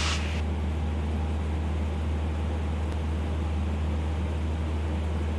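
Steady drone of a 1971 Cessna 150L's four-cylinder Continental O-200 engine and propeller in cruise, heard inside the cabin. A higher hiss over it cuts off about half a second in.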